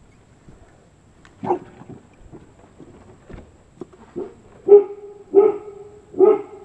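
A dog barking: one bark about a second and a half in, then a run of louder barks, roughly one every 0.7 s, from about two-thirds of the way through.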